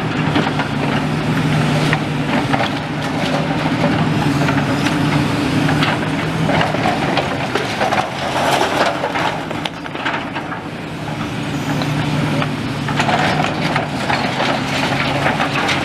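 Demolition excavator's diesel engine running steadily while its grab scoops and crushes brick rubble, with repeated clattering and cracking of bricks and debris throughout.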